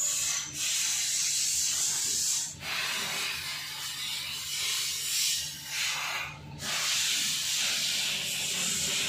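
A steady hiss that breaks off briefly three times.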